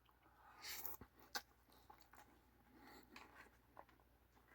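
Faint eating sounds, mostly near silence: a soft rustle about half a second in, then two small sharp clicks and a few quiet ticks of chewing.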